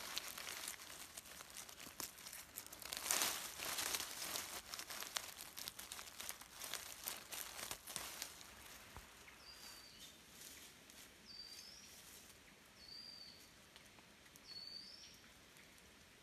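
Dry leaf litter rustling and crackling as hands dig through it and pull plant shoots out of the forest floor, dying away after about eight seconds. In the second half a bird gives four short high chirps, a second or two apart.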